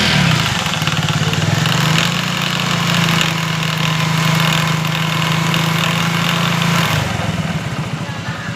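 Motorcycle engine running in gear with the rear wheel turning, the drive chain making a grinding "kar-kar" noise over the engine note. The engine speeds up at the start, holds steady, then drops back about seven seconds in.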